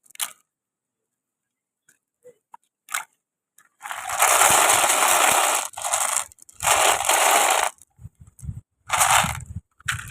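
Glass marbles on a wooden marble run: a few sharp clacks, then from about four seconds in three spells of loud rolling rattle as the marbles run along the track.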